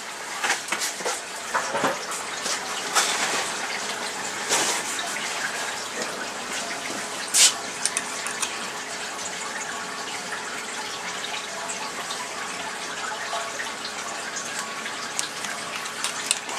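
Sharp metallic clicks and knocks of hand tools and small parts being handled, several in the first few seconds and one louder knock about seven seconds in, over a steady hiss.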